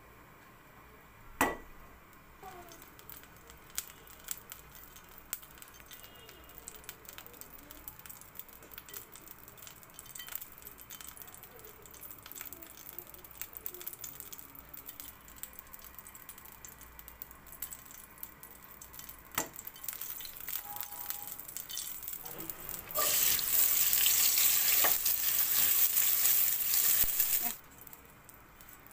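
Sliced onions sizzling loudly in hot oil in a metal pan, starting suddenly late on and lasting about five seconds before cutting off abruptly. Before that there is only faint background with a few sharp clicks.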